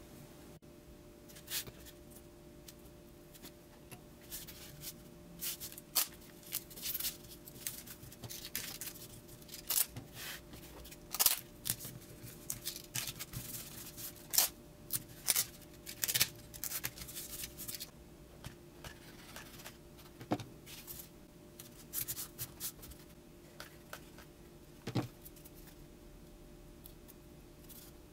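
Paper-faced foamboard being handled, cut with a snap-off utility knife and taped on a cutting mat: a long run of short scrapes, rasps and taps, busiest in the first two-thirds and sparser near the end.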